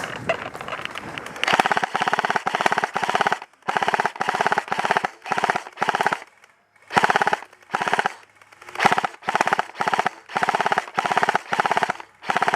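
Airsoft electric gun firing short full-auto bursts: about a dozen bursts of rapid buzzing clicks, each about half a second long, with short pauses between them and a longer pause near the middle.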